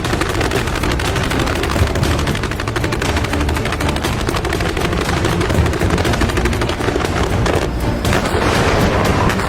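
Fireworks crackling in a fast, unbroken stream of sharp pops, like machine-gun fire, over a low rumble.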